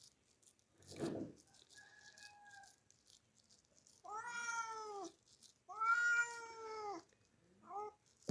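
Domestic tabby cat meowing: two long meows about four and six seconds in, each rising and then falling in pitch.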